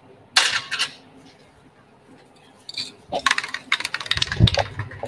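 Small metal items clinking and clattering as they are handled: a short rattle under a second in, then a longer run of clinks from about three seconds in, with a dull bump near the end.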